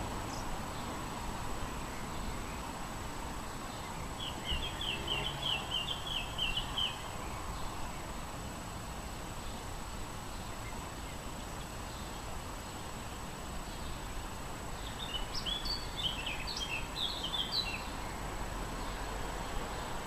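Outdoor ambience of steady wind noise with songbirds singing: a rapid trill of short, even notes about four seconds in, then a more varied song phrase about fifteen seconds in.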